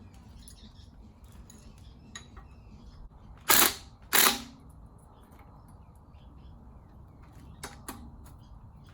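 Two sharp metal knocks about half a second apart, a few seconds in, with faint clicking between: hand-wrench work on the bolts of a 5.9 12-valve Cummins engine's exhaust manifold.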